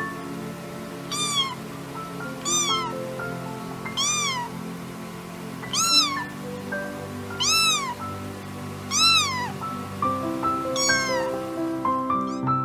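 Kitten meowing repeatedly, about seven high meows, each rising then falling in pitch, coming roughly every one and a half seconds. Background music with a stepping melody plays underneath.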